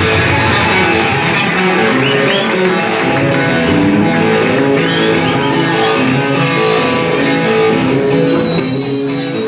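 Music with plucked guitar playing a moving line of notes.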